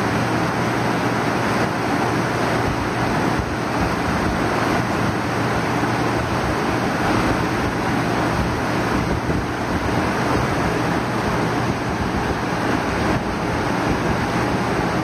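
Electropolishing tank in operation: a steady rushing, water-like noise from the agitated, foaming electrolyte, with a steady low hum underneath.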